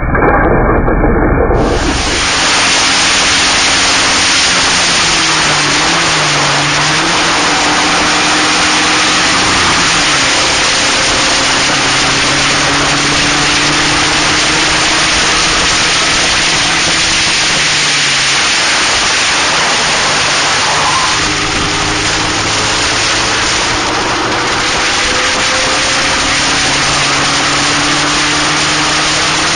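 Onboard sound of a Locost race car at speed: steady, loud wind rush over the action-camera microphone, with the engine note showing through underneath, rising with the revs and dipping at intervals.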